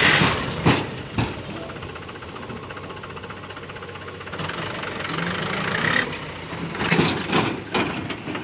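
Mahindra Arjun Novo 605 DI-i tractor's four-cylinder diesel engine running while its trolley is tipped up to unload soil. Sharp knocks and rattles come at the start, twice in the first second and a half, and again in a cluster about seven seconds in.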